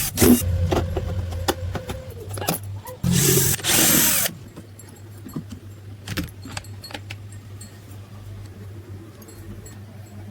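Clicks and metallic clatter of electric sprayer parts and tools being handled, with a steady low hum under them. About three seconds in comes a loud rushing noise lasting just over a second, then sparser light ticks.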